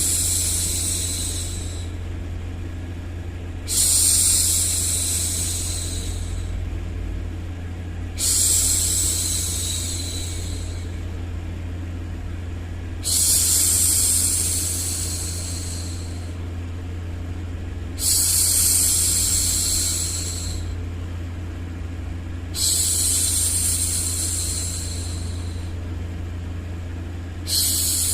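A woman's voice shushing 'shhh' over and over, each long hiss lasting two to three seconds and coming back about every four and a half seconds, six times in all. Under it runs a steady low white-noise rumble.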